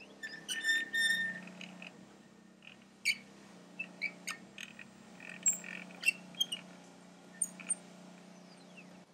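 Desktop CNC router milling a copper-clad PCB: a steady spindle hum under short chirping tones and sharp ticks from the stepper motors as the head moves, with one falling chirp near the end.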